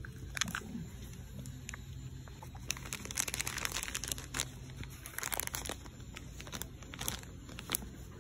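Clear plastic zip-top bag crinkling as it is handled in the fingers: irregular short crackles, thickest a little after the middle.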